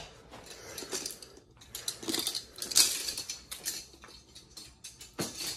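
Light clattering, tapping and rustling of small objects and clothes being handled and rummaged through, in short irregular bursts.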